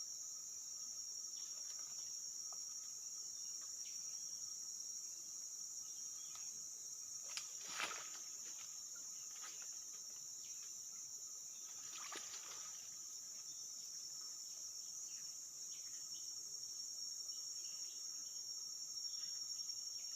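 Steady high-pitched drone of an insect chorus, with two brief louder noises about eight and twelve seconds in.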